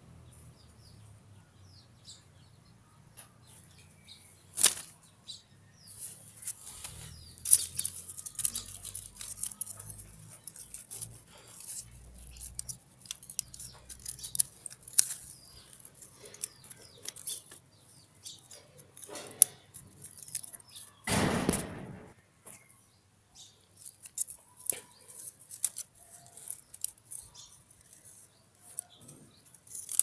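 Handling noise as the stick-and-wire trap is held and turned: scattered light clicks and rustles, with one longer, louder rustle about three quarters of the way through.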